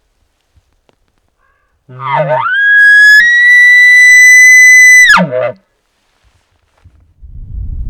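Elk bugle, loud and close: a low growl sweeping up into a high whistle, held about three seconds with a step up in pitch partway through, then falling away into short grunts.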